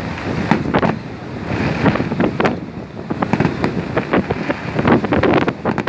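Fireworks going off over the sea: a run of irregular sharp bangs and crackles, thickest near the end, over wind rumbling on the microphone and small waves washing in.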